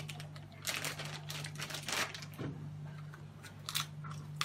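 Crinkling and rustling of something being handled, in several short bursts, over a steady low hum.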